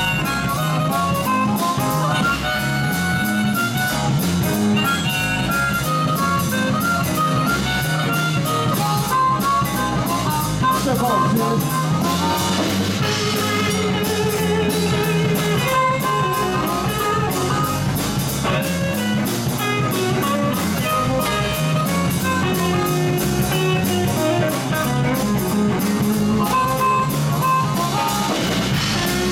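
A live blues band playing: electric guitars, bass and a drum kit keeping a steady beat, with a harmonica blown into a vocal microphone.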